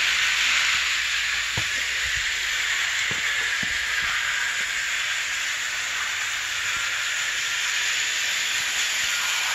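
1937 Scalecraft OO gauge electric toy train running on its metal track: a steady hiss-like running noise with a few faint clicks in the first half.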